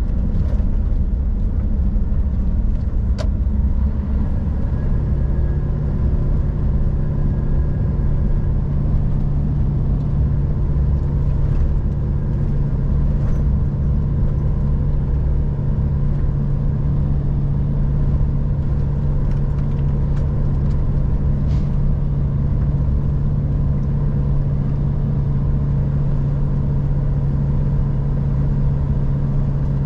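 Scania R440 truck's diesel engine running steadily under way, with road noise. A little after four seconds a steady low engine hum comes in and holds; there is one short click just before it.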